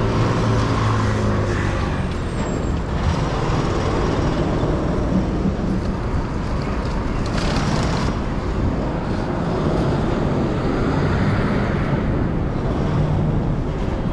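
City street traffic: vehicle engines running with a steady hum and noise. About seven seconds in there is a brief hiss.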